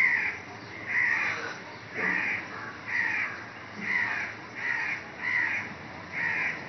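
A bird calling over and over, about eight short calls at a little more than one a second.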